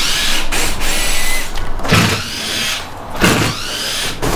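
A large cardboard motorcycle shipping crate being handled and pulled open by hand: cardboard scraping and rubbing with squeaky streaks, and two dull thumps about two and three seconds in.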